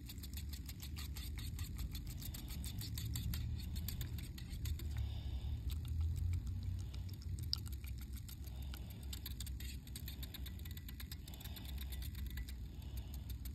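Handheld battery milk frother whisking creamer in a cup: a low hum that swells and eases, with fast rattling ticks. The owner suspects the frother is defective because it keeps stopping.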